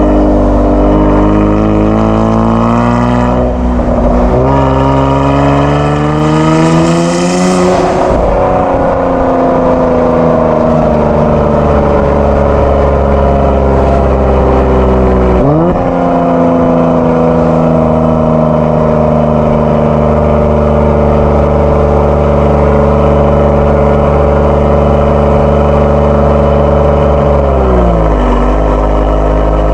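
Kia Stinger 3.3 twin-turbo V6 with a JSR Performance aftermarket exhaust under way: the revs climb twice with a gear change between, then ease off into steady running, with further gear changes about halfway through and near the end.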